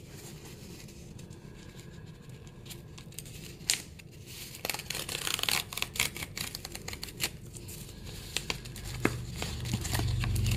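Packaging being torn and crinkled open by hand: a single click about four seconds in, then a few seconds of tearing and rustling.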